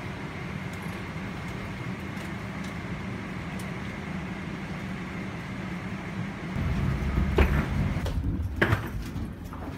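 Steady hum of a Boeing 777-300ER's cabin after landing, with a faint high steady tone over it. About two-thirds of the way in, it gives way to a louder low rumble, with two sharp knocks near the end.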